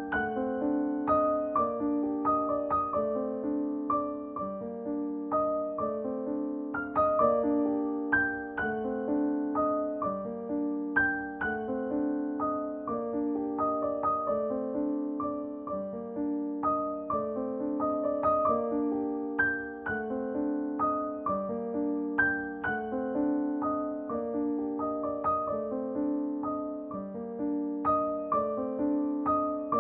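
Background piano music: a steady run of struck notes and chords in a repeating pattern.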